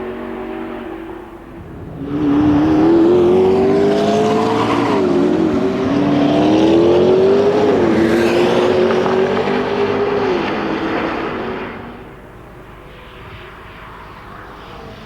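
McLaren P1's twin-turbo V8 accelerating hard at full throttle. Its pitch climbs through the gears, with two quick upshifts, before the car fades away. The sound comes in suddenly about two seconds in and drops off near the end.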